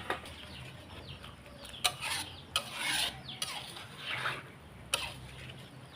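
A few short rasping, scraping noises between about two and five seconds in, with chickens clucking faintly in the background.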